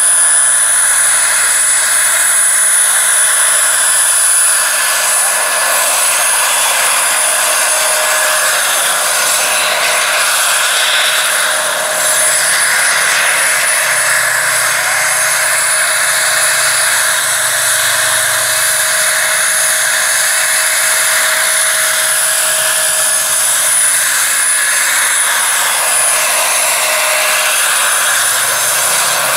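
Gas turbine engine of a large radio-controlled Bell 412 scale model helicopter running in flight, a steady high whine over an even rushing noise from the engine and rotors.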